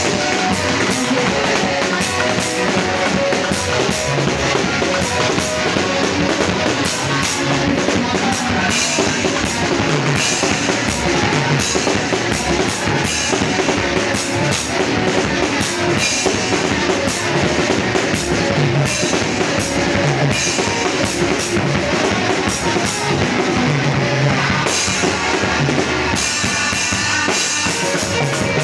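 A church band playing upbeat music: a drum kit keeps a steady beat, with guitar.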